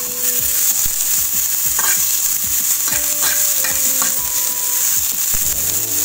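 Small prawns sizzling as they roast in a hot pan. A spatula stirs them, scraping and tapping against the pan many times.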